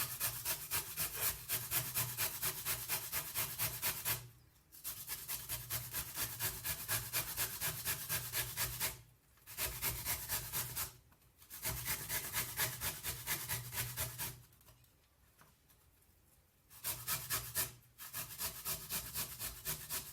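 Peeled turnip being grated on the medium holes of a hand grater: quick scraping strokes, about three a second, in runs broken by short pauses.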